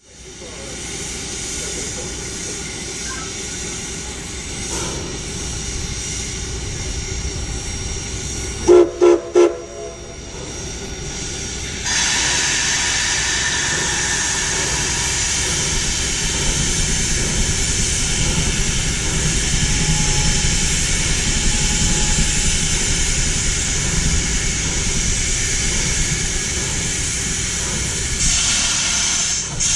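Steam locomotives hissing steam, with three short steam-whistle blasts about nine seconds in, the railroad signal to back up. About twelve seconds in the steam hiss grows louder and then stays steady.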